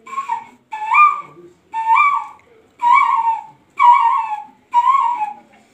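A small hand-held whistle blown in six separate notes, each about half a second long and about a second apart, each bending up and then down in pitch.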